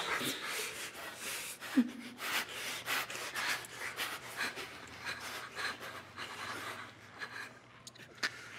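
Stifled laughter: a run of quick breathy puffs and snorts through the nose and mouth, about two a second, with one brief voiced sound about two seconds in.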